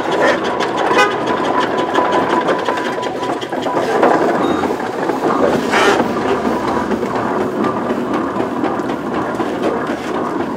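Steam traction engine driving past at road pace, its engine working in a quick, even beat of several strokes a second.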